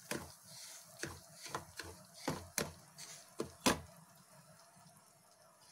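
Wooden spatula tapping and scraping against a pan while stirring semolina roasting in ghee. There is an irregular run of taps for about four seconds, and then they stop.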